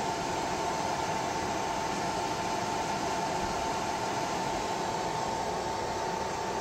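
Hybrid inverter under a heavy load of about 117 A from a 24 V LiFePO4 battery, feeding a 3 kW kettle: a steady fan whir with a constant high whine running through it.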